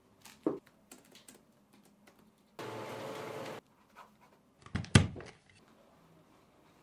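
Desk work with pen and paper: scattered small clicks and taps, a steady rasp lasting about a second some two and a half seconds in, and a sharp thump about five seconds in, the loudest sound.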